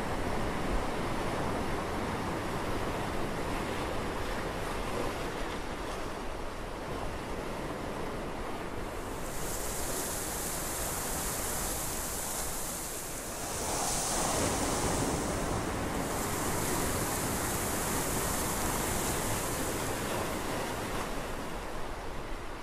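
Ocean waves surging and washing, a steady rush of surf, with a high hiss joining about nine seconds in.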